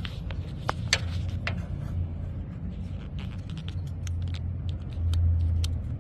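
Small plastic clicks and rattles from a turn-signal bulb connector and socket being handled and pressed into its plastic clip until it snaps in, over a low steady hum.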